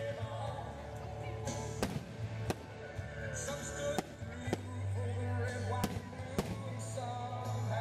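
Aerial fireworks going off, about six sharp bangs a second or so apart, over continuous music with singing.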